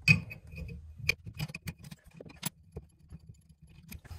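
A wrench working the supply-line nut under a toilet tank, then the metal supply line being unscrewed and handled: scattered light metallic clicks and clinks, the sharpest right at the start.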